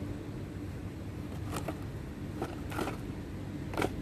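Steady low hum of a shop interior, with five short clicks or rustles spread over the last two and a half seconds, the loudest near the end.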